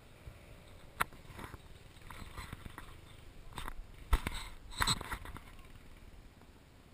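Someone moving through woodland floor litter: light rustling broken by scattered sharp cracks and snaps, the loudest about four seconds in and a short cluster just after.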